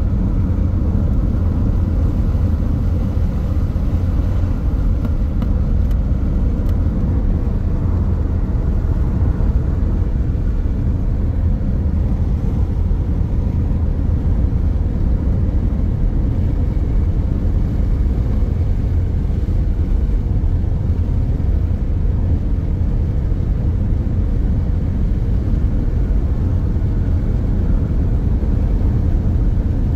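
A car driving along the road: a steady, unchanging low rumble of road and engine noise.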